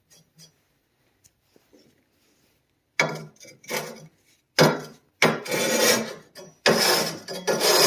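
A flat sharpening stone scraped back and forth along the edge of a chainsaw bar, dressing the rail flat where the chain has worn a groove. A few faint short strokes come at the start, then after a pause of about two and a half seconds come loud rasping strokes, roughly one every half-second to second.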